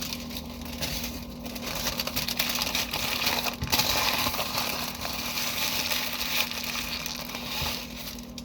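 Paper sandwich wrapper being handled and unwrapped, a continuous crinkling rustle that is loudest about the middle.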